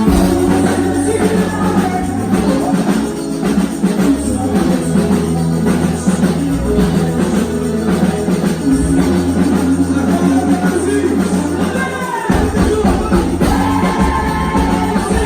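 Loud performance music with a steady drum beat, bass and singing, playing a quadrilha junina show.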